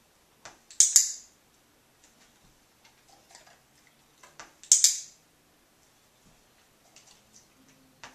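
Handheld dog-training clicker clicked in a quick double click (press and release), twice, about four seconds apart. Each click marks the dog's paw pressing on the floor target.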